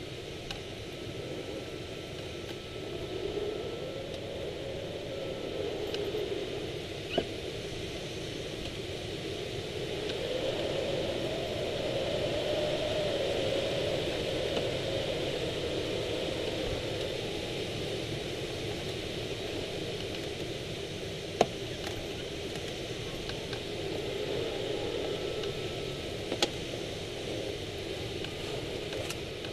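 Wind rushing past a Swift rigid-wing hang glider's cockpit in flight, swelling and easing slowly as the airspeed rises and falls through the wingovers. A few sharp clicks stand out, the loudest about two-thirds of the way in.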